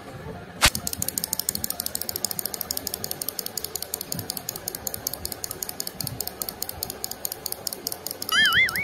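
Clockwork wind-up chick toy running, its spring mechanism giving a rapid, even clicking as it hops, after a single sharp click about a second in. A brief wavering high-pitched tone comes near the end.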